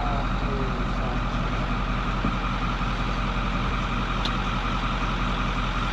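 An engine running steadily at an even speed, with no rise or fall in pitch.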